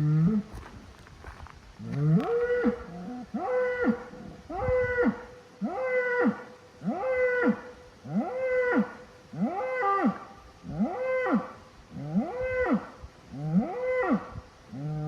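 A large animal bellowing in a steady series of about ten loud calls, each rising and then falling in pitch, roughly one every one and a half seconds.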